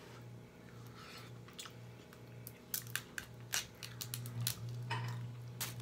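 Person eating close to the microphone: chewing and mouth smacking, with a run of sharp clicks and crunches from about halfway through, over a steady low hum.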